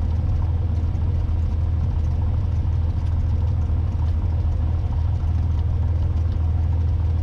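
Cessna 182T's six-cylinder Lycoming IO-540 engine running at low taxi power, a steady low drone with no change in pitch.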